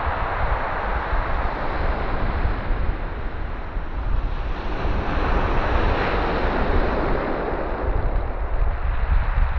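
Sea waves breaking and washing up the shore, with wind rumbling on the microphone; a wave surges and hisses about halfway through, then drains away.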